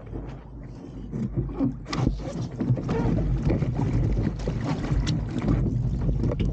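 Water rushing and slapping against the hull of an RS300 sailing dinghy under way, with wind buffeting the microphone as a low rumble. It gets louder about two seconds in, with a few sharp splashes.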